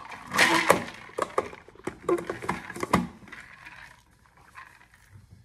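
Scattered sharp clicks and knocks of objects being handled close to the microphone, with a short rustle about half a second in. The sounds die away after about three seconds.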